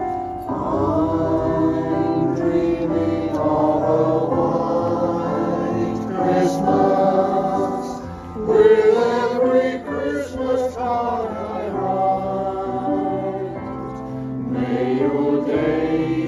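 Mixed choir of men's and women's voices singing a song in harmony, phrase after phrase, with a brief breath between phrases about eight seconds in.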